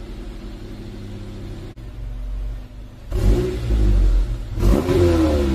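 Honda Accord Euro R's K20A 2.0-litre four-cylinder engine idling through a Mugen titanium sport exhaust, then revved by two short throttle blips about three and four and a half seconds in. The pitch rises and falls on each blip, and the second is louder and higher.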